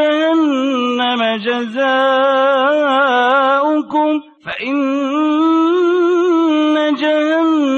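A male reciter chants the Quran in the melodic tajwid style, drawing single syllables out into long, wavering held notes. He pauses briefly for breath about four seconds in, then goes on.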